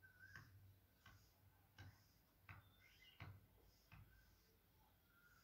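Faint marker strokes on a whiteboard: about six short taps and scrapes as the lines of a cube are drawn.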